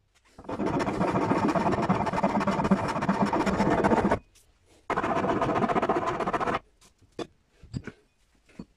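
Rotary tool on a flexible shaft grinding and carving into the end grain of a wooden hatchet handle. It runs steadily for about four seconds, cuts off suddenly, then runs again for about two seconds before cutting off. A few light knocks follow near the end.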